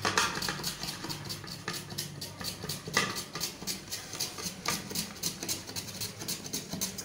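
A carrot being grated on a flat metal hand grater: quick scraping strokes in a steady rhythm of about three or four a second.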